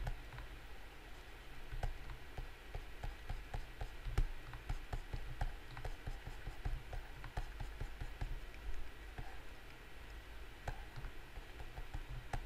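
Faint, irregular clicks and taps of a computer mouse and keyboard, over a low steady hum.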